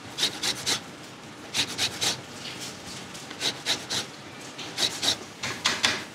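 Lemon being zested on a Microplane rasp grater, its tip resting on a wooden chopping board: quick scraping strokes in short runs of three or four, with brief pauses between runs.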